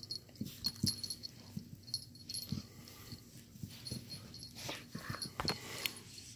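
A husky and a small puppy play-wrestling on a rug: scattered soft knocks, scuffles and breathy noises from the dogs.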